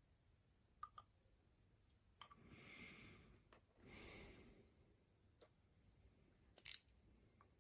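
Faint scattered clicks of small metal lock parts being handled during disassembly of a pin-tumbler challenge lock, with two soft breaths in the middle.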